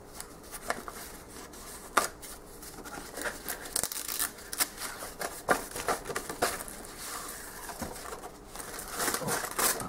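Wrapping paper rustling and crinkling as hands unfold it from a gift-wrapped box, with tissue paper being pulled back near the end; a string of sharp paper crackles, the loudest about two seconds in.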